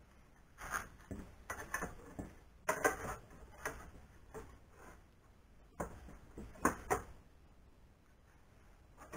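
Aluminium extrusion rails clinking, knocking and scraping against each other and the CNC frame as they are handled and fitted by hand. An irregular clatter of knocks, busiest in the first seven seconds and tailing off near the end.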